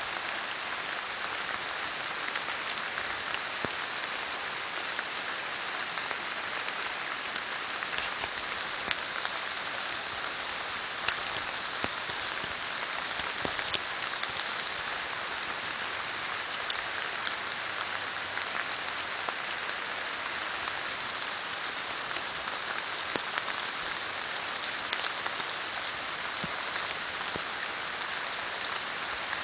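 Steady rain-like hiss with many small scattered ticks, like rain pattering on a surface.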